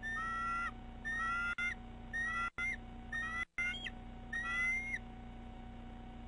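Bald eagle calling: a run of five similar high, whistled notes, each about half a second long and sliding slightly upward, about one a second, stopping about five seconds in. The calls are given at the nest with an intruder nearby.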